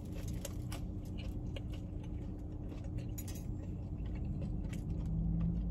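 Close-up chewing of a buttermilk biscuit: many soft, irregular mouth clicks over a steady low hum. Near the end, a held closed-mouth 'mm' of enjoyment.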